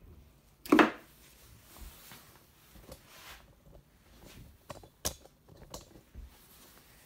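Steel chisel paring Douglas fir by hand. One loud scraping cut comes about a second in, followed by fainter scrapes and a sharp click a little after five seconds.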